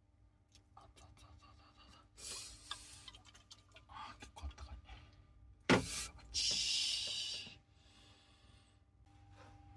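Small clicks and handling noises, a short hiss, a single sharp knock, then a louder hiss lasting about a second.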